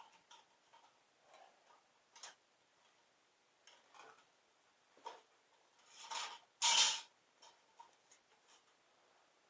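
Scattered light clicks and taps from hands and tools working a part loose on an LS engine, with a louder scraping, rustling burst about seven seconds in.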